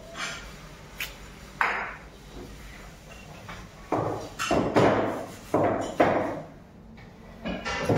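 Metal pots and dishes clanking at a kitchen sink as they are washed and stacked. A couple of sharp clinks come early, then a quick run of louder clanks with short ringing tails about halfway through.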